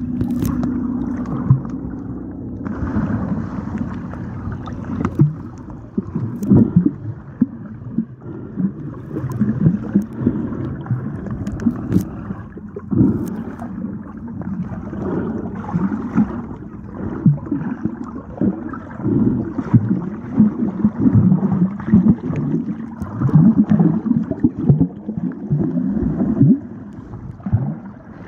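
Muffled underwater sound from a microphone held under water: bubbles gurgling and water churning in irregular low swells, with only faint traces of higher sounds.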